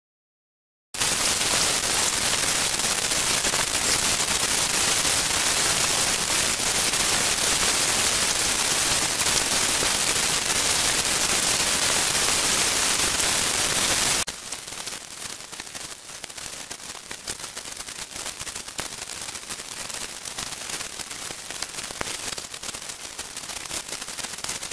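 Loud, steady hiss with a fine crackle, like static or recording noise, that drops suddenly to a quieter crackling hiss about fourteen seconds in.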